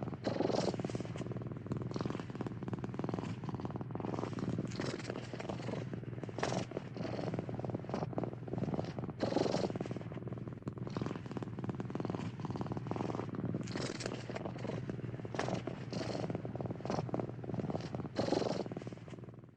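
Domestic cat purring steadily close up, the rumble swelling and easing with each breath in and out.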